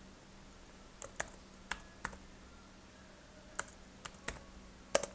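Computer keyboard being typed on: a run of separate key clicks at an uneven pace, starting about a second in, with the loudest click near the end.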